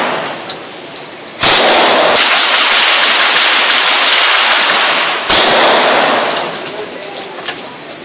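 Thompson submachine gun (.45 ACP) firing at an indoor range: a long rapid burst about a second and a half in, then another burst a little after five seconds that dies away slowly. Each burst rings on in the enclosed range.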